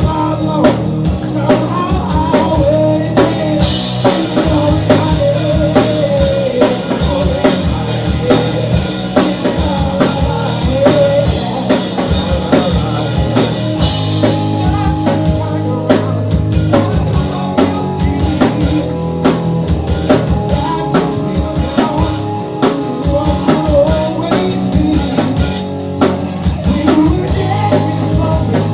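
A rock band playing live: drum kit, electric guitar and bass, with a wavering melody line over them. A steady cymbal wash comes in a few seconds in and stops about halfway through.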